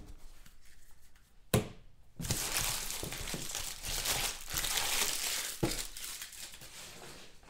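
Plastic wrapping crinkling and rustling as it is handled, starting with a sharp click about a second and a half in and dying away near the end.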